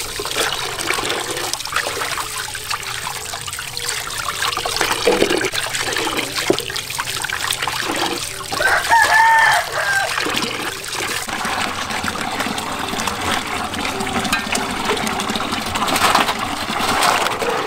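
Water running from a pipe into a large metal basin and splashing as hands rinse raw chicken feet. A rooster crows once, about nine seconds in, the loudest sound.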